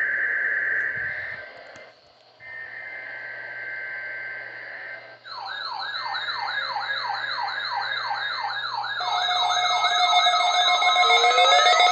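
Electronic siren tones: a steady high tone that breaks off briefly, then rapid rising sweeps repeating about three times a second, joined about nine seconds in by more overlapping sweeps and steady tones as the sound grows louder.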